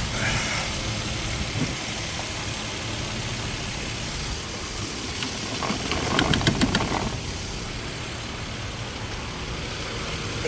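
Nissan Pathfinder's 4.0 L V6 running during a test after new camshaft sensors, spark plugs and ignition coil boots, with a short cluster of clicks about six seconds in.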